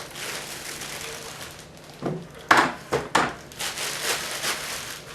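Packaging being handled during an unboxing: plastic wrap and cardboard rustling, with a cluster of sharp crinkles and knocks about two and a half seconds in.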